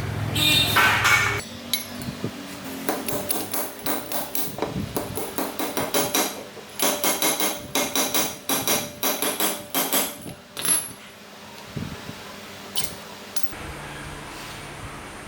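Hammer striking metal: a quick run of taps, about four a second, each with a metallic ring, during work on a motorcycle's steering head bearings. It thins to a few single taps near the end. A short rasping noise opens it.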